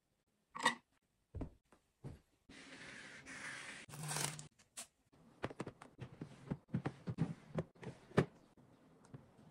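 A sharp knock, then a rustling, tearing noise for about two seconds, followed by a run of small clicks and taps.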